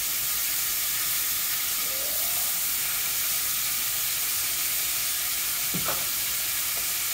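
Chicken legs frying in olive oil in a nonstick pan, a steady sizzle as they are turned over with tongs midway through browning.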